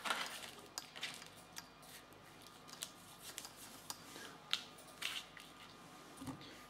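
Faint rustling and crinkling of a paper sheet being pressed and smoothed flat by hand, with scattered short crackles.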